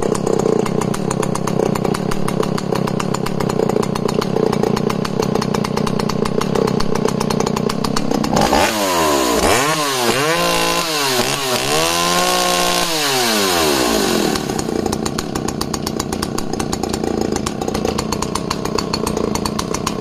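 Vintage Al-Ko 5500S two-stroke chainsaw idling steadily. About eight seconds in it is revved up and back down about four times. It then settles back to a steady idle.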